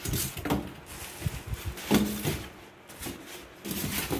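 Rustling and knocking of cardboard and packing as items are lifted out of an appliance's shipping box, with a louder knock about two seconds in.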